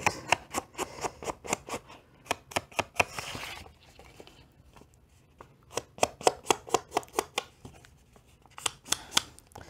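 Ink blending tool dabbing on a Ranger Distress ink pad and onto paper edges: quick tapping clicks in runs, with a brief rubbing sound about three seconds in and a pause in the middle.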